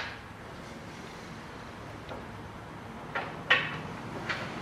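Metal clicks and knocks from a wood lathe's tailstock and its locking handle being worked during adjustment: one click at the start, a quiet spell, then three knocks close together near the end, the second one loudest.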